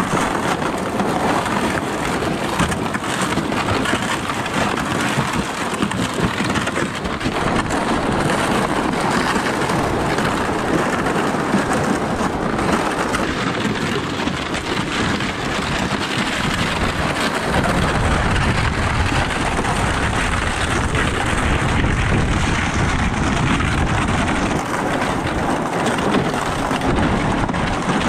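Plastic ice-fishing sled dragged over crusty snow and ice, a steady scraping, crunching hiss. From a little past halfway a low rumble of wind on the microphone joins in.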